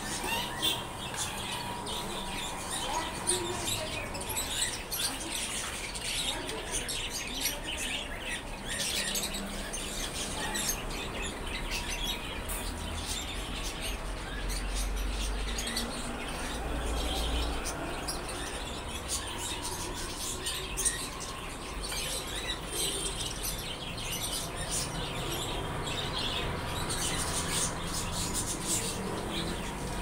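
Caged pet birds, small parrots among them, chirping and tweeting: many short, overlapping calls throughout, with a low rumble about halfway through.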